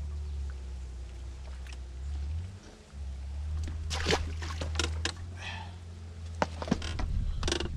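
Wind buffeting the microphone as a steady low rumble that drops away briefly, with a cluster of sharp clicks and knocks in the second half.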